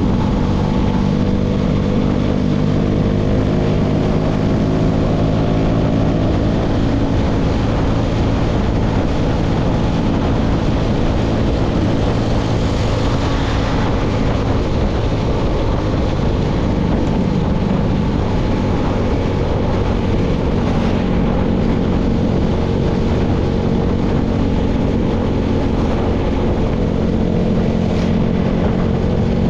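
Tractor engine running steadily at constant speed while pulling a baler, with only small shifts in pitch.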